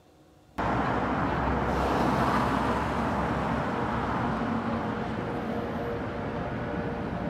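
City street traffic: a steady rumble of cars and road noise that cuts in suddenly about half a second in.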